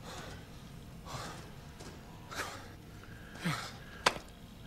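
A man breathing quietly with short puffs of breath through the nose, about one a second. There is a single sharp click about four seconds in.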